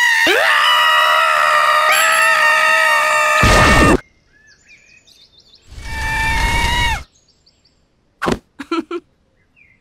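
A cartoon boy and little girl screaming together in one long held scream that cuts off about four seconds in. A second, shorter scream follows about six seconds in, with faint chirps between, and brief bursts of laughter near the end.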